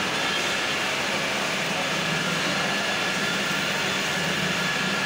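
Steady drone of a CNC wheel-turning lathe and its chip conveyor running: a low hum with a thin high whine over it.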